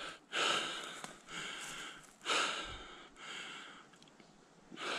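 A man breathing hard through the mouth, about one heavy breath a second: he is out of breath after a steep uphill slog.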